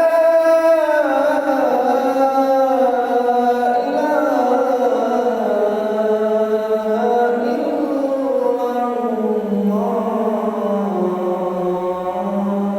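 Adhan chanted solo in the Kurdi maqam, unprocessed with no added effects: one long, ornamented phrase that wavers and slowly falls in pitch, held without a break.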